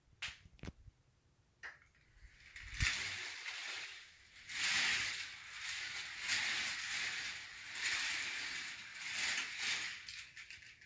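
K'Nex roller coaster train running along its plastic track: a rushing rattle of wheels that swells and fades as it goes through the layout. It starts about two and a half seconds in, after a few sharp clicks, and stops suddenly near the end as the train comes to rest on the brake run.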